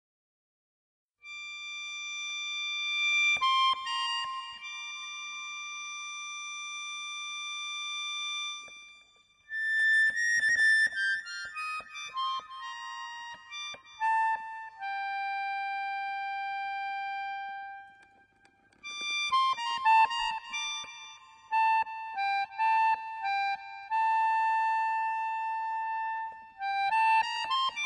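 Solo melody on a high-pitched wind-like instrument: long held notes in three slow phrases, with short pauses between them.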